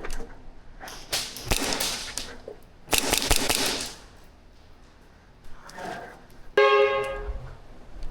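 Airsoft guns firing two rapid bursts of about a second each, the shots running together into a dense rattle. A short, fainter burst follows, then a brief pitched tone.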